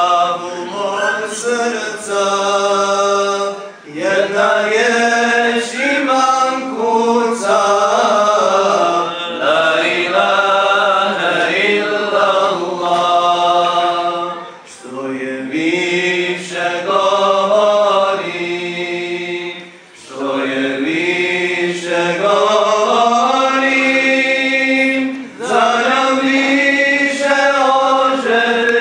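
A solo male voice singing an unaccompanied Islamic devotional chant into a handheld microphone: long, ornamented phrases with short pauses for breath between them.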